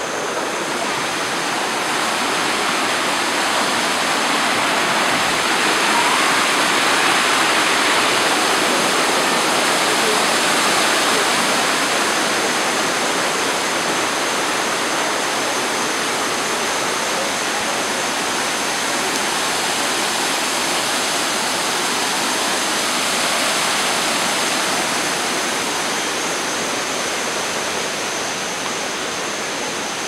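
Steady rush of a waterfall's water cascading over rock ledges, swelling a little in the middle and easing slightly near the end.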